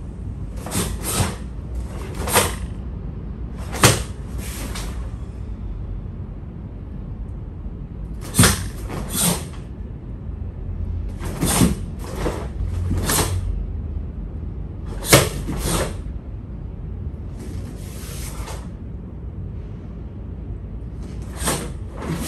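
Karate gi snapping sharply with each strike and block, in quick pairs and triplets every few seconds, over a steady low hum.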